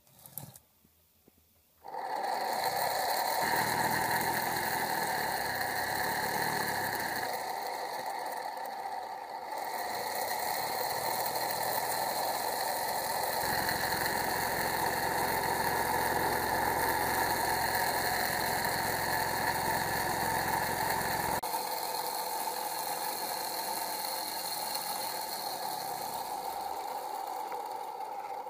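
Small DC cooling fan, wired to a battery and tied under a basin of ferric chloride etchant, switching on about two seconds in and running with a steady whir and hum as it shakes the basin to agitate the etchant; the deeper part of the sound drops away about two-thirds of the way through.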